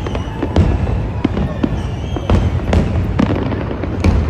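Fireworks going off: an irregular run of sharp bangs and crackles, a few each second, over a continuous low rumble of distant bursts.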